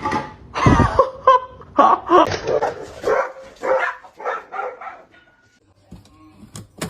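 A dog barking in a quick series, about a dozen barks over some five seconds, then stopping.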